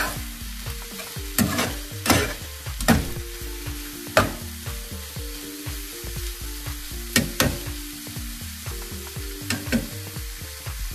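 Chopped broccoli and tomato sizzling as they fry in olive oil in a frying pan, with a steady hiss, while a slotted spatula stirs and scrapes them, clicking against the pan now and then.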